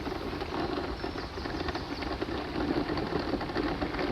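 Electric mobility scooter driving over fine gravel: a steady motor hum with the tyres crackling over the small stones.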